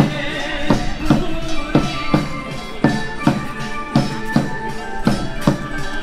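Upbeat dance music with a strong, steady beat, a little under three beats a second, and a melody over it.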